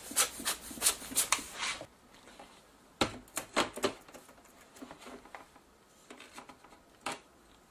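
About six quick puffs of air from a rubber hand blower, cleaning dust off a camcorder lens, over the first two seconds. Then a few knocks and clicks of the camcorder body being handled and its lens being fitted.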